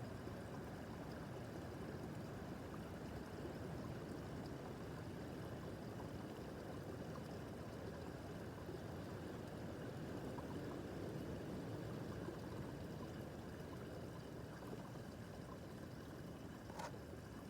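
Small brook babbling: a steady rush and gurgle of water over stones. A single brief click sounds near the end.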